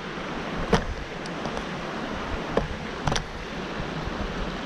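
Small spring-fed stream flowing steadily, with a few sharp clicks about a second in and again around the middle.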